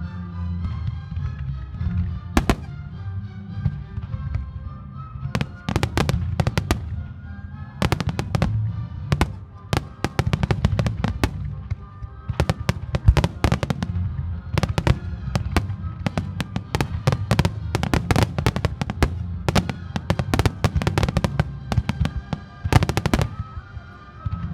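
Fireworks in a grand finale, bursting in rapid volleys of sharp bangs that come thick and fast through most of the stretch. Music with a heavy low beat plays underneath.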